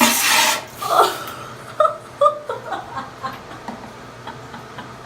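A person laughing, with a breathy outburst and then a run of short giggles, over the steady hum of a bathroom exhaust fan.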